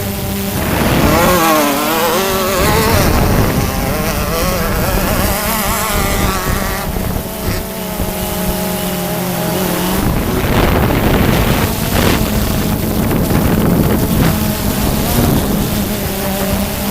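Off-road buggy engines revving up and down, heard over the steady buzz of a quadcopter drone's propellers and wind on the microphone.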